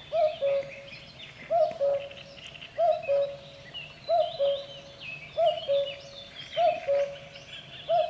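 Common cuckoo calling its two-note "cuck-oo", the second note lower than the first, seven times at an even pace of about one call every 1.3 seconds. Smaller songbirds chirp faintly in the background.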